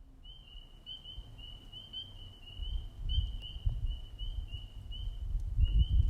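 A steady run of short, high peeping calls, about two or three a second, all on nearly the same pitch, over a low rumble that grows louder toward the end.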